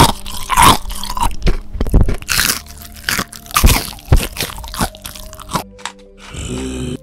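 Loud crunching and chewing of crispy cooked fish: about a dozen sharp, irregular crunches as it is bitten and chewed.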